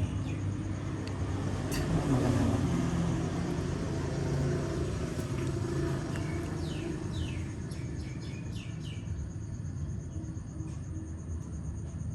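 Outdoor background: a low rumble, like a passing vehicle, that swells about two seconds in, with a run of short falling chirps between about six and nine seconds in.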